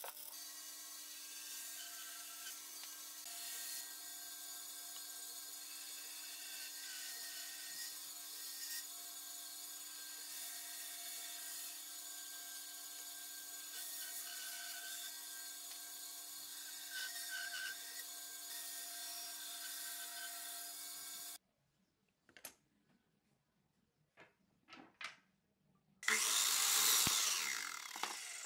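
Woodworking power tools cutting pine: a machine runs steadily with a constant hum for about twenty seconds, then stops suddenly. A few sharp clicks follow, then a sliding miter saw runs loudly near the end.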